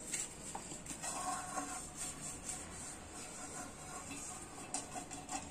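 Faint background music with a few soft sustained notes.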